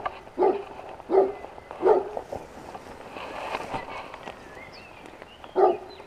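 A dog barking: three barks in quick succession in the first two seconds, then one more near the end.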